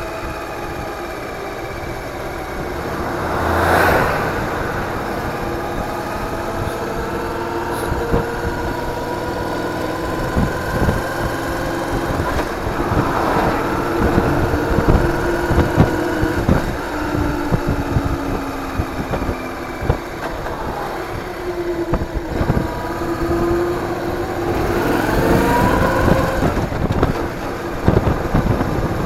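Engine of the vehicle carrying the action camera, its pitch rising and falling over and over with speed and gear changes, over road rumble and wind knocks on the microphone. Two louder whooshes come at about four seconds in and again near the end.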